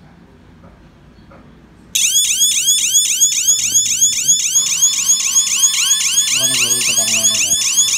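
An electronic alarm siren wired to a ZKTeco SC103 access controller switches on suddenly about two seconds in, as the controller's scheduled bell goes off at the set time. It sounds as loud, rapidly repeating warbling sweeps, with a steady tone joining in about halfway through.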